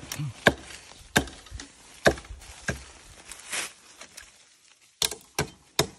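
Dry twigs and bamboo litter cracking and snapping under footsteps: a series of sharp, irregular cracks with a short lull partway through.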